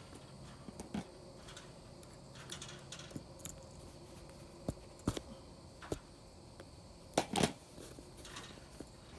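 Hand-stitching a heavy cotton canvas tent: scattered rustles, small clicks and scrapes as the needle is pushed through the canvas, pulled out with pliers and the artificial sinew drawn tight. The loudest handling comes about seven seconds in.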